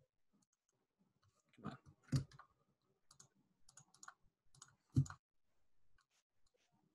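Faint clicks and knocks from a computer mouse being handled and clicked at a desk. Two louder knocks come about two and five seconds in, with lighter clicks between them.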